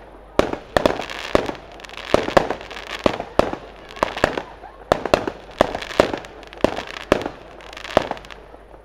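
Fireworks display: aerial shells bursting in an irregular run of sharp bangs, about two or three a second.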